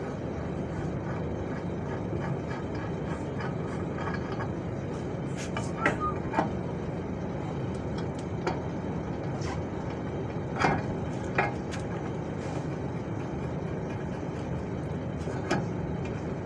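Scattered sharp metallic clinks and knocks, about eight in all, as steel parts at a truck's front-axle steering knuckle are handled during a tie rod end replacement, over a steady low background rumble.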